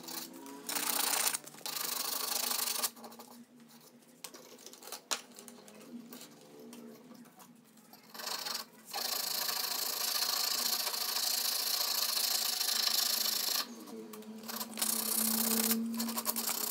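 Hand sanding: coarse sandpaper rubbed briskly back and forth against a wooden stick in a few spells of scratchy strokes, the longest in the second half, with quieter handling and small clicks between.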